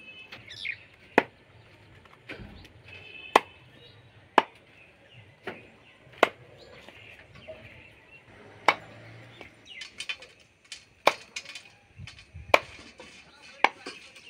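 Machete chopping chicken meat and bone on a wooden log chopping block: about ten sharp chops at an uneven pace, one every second or two.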